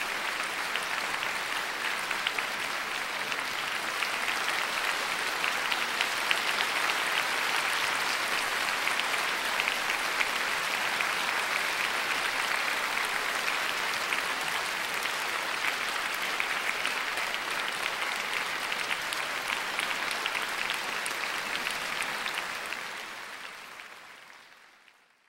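Concert hall audience applauding steadily, a dense even clatter of many hands clapping. It fades out over the last few seconds.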